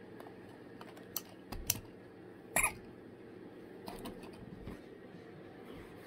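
A cockatoo playing with a toy: scattered light clicks and taps of beak and claws, with one louder, short, sharp sound about two and a half seconds in.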